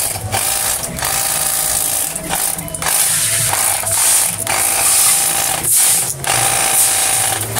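Cordless battery-powered pressure washer running: its pump hums and its spray hisses. The sound stops for a moment several times and picks up again.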